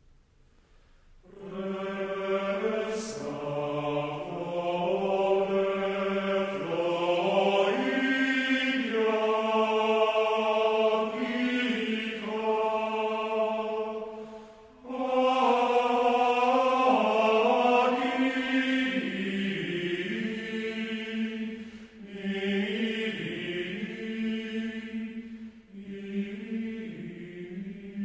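Background music: a choir singing slow, held notes in a chant-like style. It comes in about a second in and breaks off briefly near the middle before carrying on.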